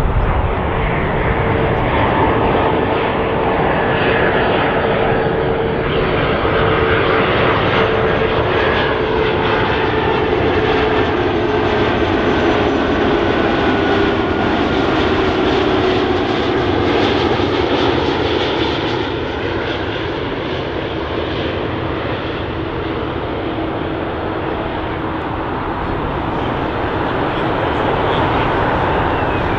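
Airbus A330-200 airliner on final approach, its twin jet engines running with a steady roar and a whine that falls in pitch as it passes.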